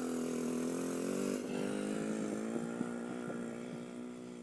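Bajaj CT100 motorcycle's small single-cylinder engine labouring up a steep climb in first gear, a steady drone that slowly fades as the bike moves away.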